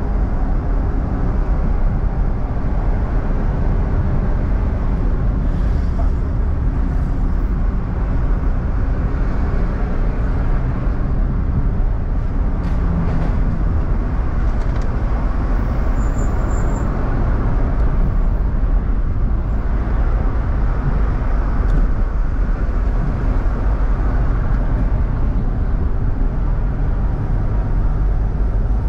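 A car being driven in traffic: steady engine, tyre and road noise with a heavy low rumble.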